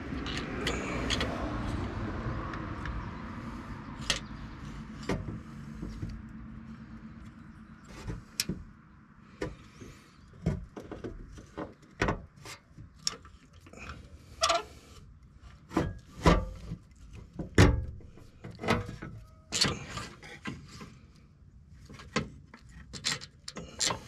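Handling noise from a King 2.5 piggyback-reservoir shock being worked into place by hand. It starts with a few seconds of rubbing and rustling, then turns to irregular knocks and clicks of the shock body and reservoir against the suspension and fender liner, coming more often in the second half.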